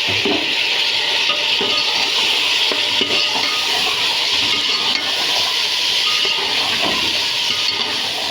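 Chicken pieces sizzling in hot oil with onions and ginger-garlic paste: a steady frying hiss, with a few clinks of a spoon against the pot.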